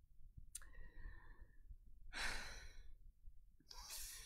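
A man's breathing: a short click and an inhale about half a second in, then a long, heavy sigh about two seconds in, and another breath near the end.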